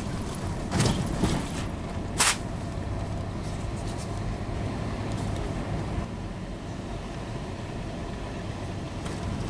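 Vehicle driving along a lane, a steady low engine and road rumble, with a few sharp knocks about a second in and a single sharp click about two seconds in.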